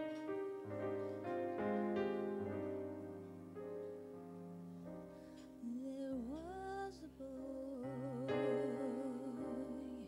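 Live piano accompaniment on a stage keyboard playing slow sustained chords, joined about halfway through by a woman singing, her voice sliding up into a note and then holding notes with a wide vibrato.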